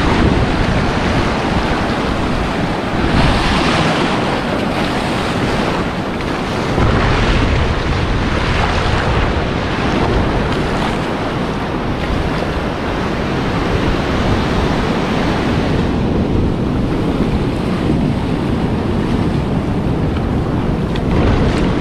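Ocean surf washing over shallow sand, with waves breaking offshore and wind buffeting the microphone. The wash swells and eases every few seconds.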